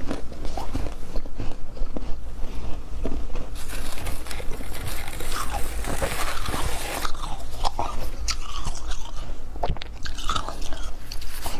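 A person biting and chewing freezer frost, with close-up crunching that is densest around the middle.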